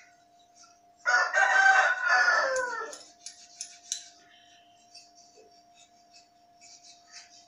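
A rooster crows once, a call of about two seconds whose pitch falls at the end. Around it come faint clinks and splashes of small brass items being scrubbed by hand in a basin of water, over a faint steady hum.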